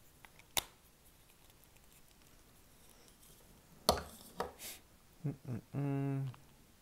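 Hard plastic toy parts clicking and knocking as pieces of a Legacy Collection Megazord's weapon are handled and fitted together, a few separate clicks about half a second in and around four seconds in. Near the end a man gives a short steady hum.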